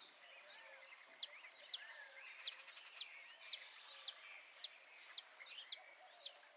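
Bird ambience: a bird gives short, sharp high chips about twice a second, with fainter twittering and warbling of other birds behind.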